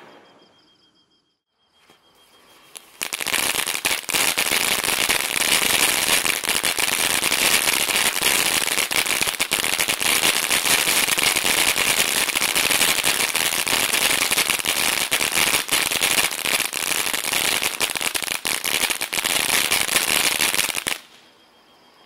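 Neon Nights 200-gram consumer firework fountain in its opening glitter phase, spraying crackling stars as a dense, continuous rapid crackle over a hiss. It starts about three seconds in and cuts off suddenly near the end.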